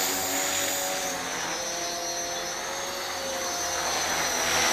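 Walkera V450D03 electric 450-size RC helicopter in flight: a steady whine of its motor and rotors with a slight wavering in pitch, dipping a little and then growing louder near the end.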